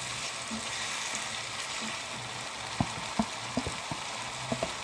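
Chilli paste with onions sizzling in a hot pan, a steady hiss, with a few light knocks of a spoon against the pan in the second half.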